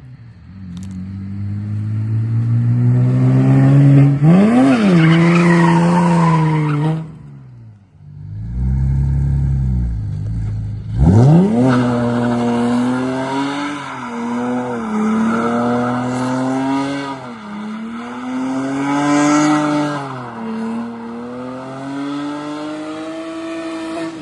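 A car being drifted: its engine revs up and down, with sharp climbs in pitch about four and a half seconds in and again around eleven seconds, over the hiss of tyres sliding and squealing. A dip to a low, steady engine note comes between the two pushes.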